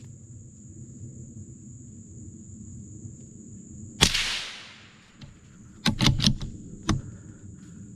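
A single gunshot about four seconds in, sharp, with its echo trailing off for about a second. About two seconds later come a few quick sharp clacks, and one more shortly after. A steady high whine runs underneath.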